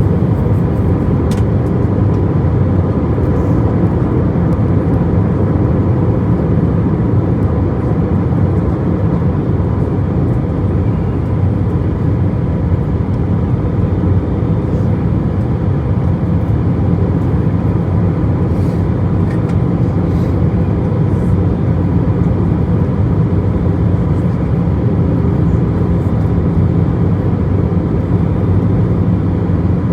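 Airliner cabin noise in flight: a steady, even low rumble of engines and airflow, with a faint steady whine.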